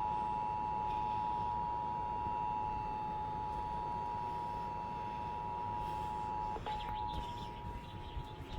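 Emergency Alert System two-tone attention signal (about 853 and 960 Hz together), held steady over a low hiss, with a short crackle about two-thirds of the way through.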